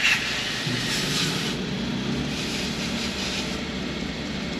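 Hand wet-sanding of a plastic headlight lens with 1000-grit sandpaper in side-to-side strokes, a soft scrubbing, over a steady low rumble.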